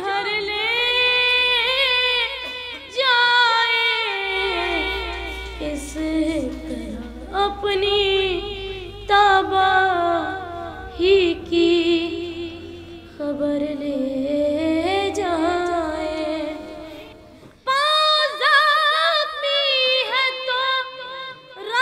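A solo high voice singing a slow Urdu mourning elegy for Muharram, in long phrases with sliding, ornamented notes and a short break for breath between phrases.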